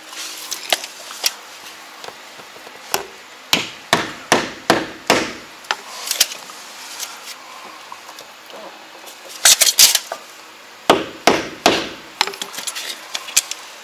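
Sharp hammer taps, irregular and some in quick runs, as a tilt-turn door frame is knocked into position.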